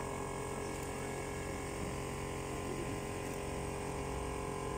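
Steady mechanical hum made of several held tones, even in level throughout.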